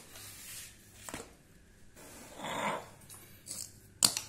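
Soft rustling handling noises, then a sharp metallic click about four seconds in as a hand picks up a motorcycle ignition stator plate beside its flywheel magnet.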